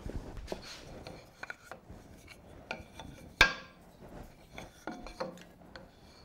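Light hand-handling sounds of a wooden block and a square being positioned and marked, small scrapes and clicks, with one sharp click and a short ring about three and a half seconds in. The bandsaw is not running.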